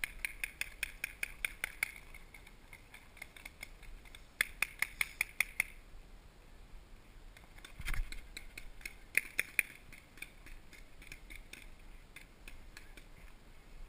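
Paintball markers firing in rapid strings of sharp pops: a burst of about ten shots right away, another of about seven some four seconds in, and a shorter string about nine seconds in, with a single duller knock about eight seconds in.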